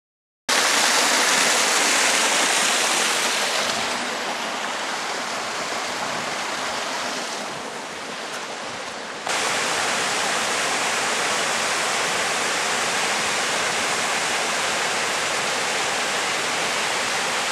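Small waterfall and stream rushing steadily. It is preceded by a different steady rushing noise that fades slowly and cuts off abruptly about nine seconds in.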